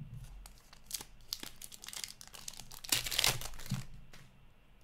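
Wrapper of a hockey card pack being torn open and crinkled, a dense crackle that is loudest about three seconds in and dies away near the end.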